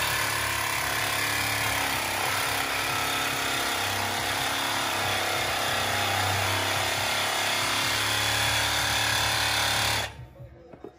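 Cordless reciprocating saw running steadily as it cuts through the car's metal exhaust pipe, stopping suddenly near the end.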